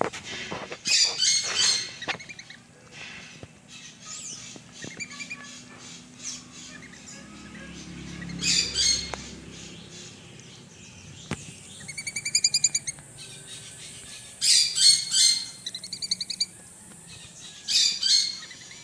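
Parrot squawking in loud, harsh calls, about five times, one of them a quick run of short chattering notes about twelve seconds in.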